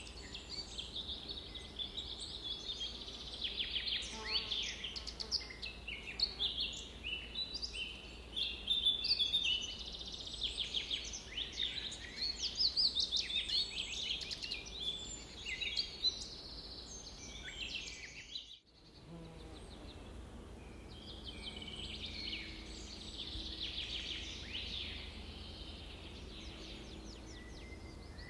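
Bird-chirping sound effect: a dense chorus of small birds chirping and trilling over one another, cutting out for an instant about two-thirds through before the chorus carries on.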